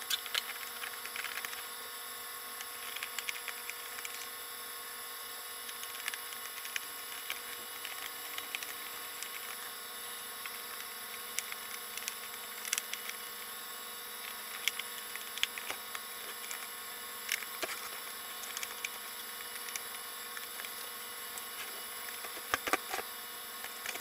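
Scattered light clicks and taps of a small screwdriver and hands working on a plastic boombox case with a Bluetooth decoder panel set into it, with a few louder clicks near the end, over a steady background hiss and faint whine.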